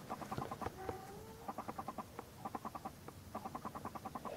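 Faint animal clucking: several short runs of quick, evenly spaced clicking calls, with a brief squeaky glide about a second in.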